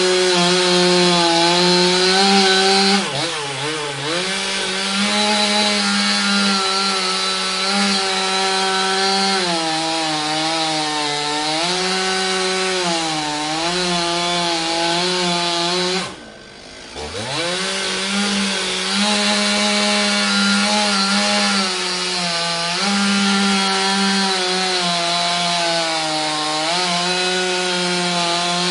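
Chainsaw running at high speed while sawing, its engine pitch wavering as the load changes. About three seconds in it sags briefly, and a little past the middle it drops almost to idle, then revs straight back up.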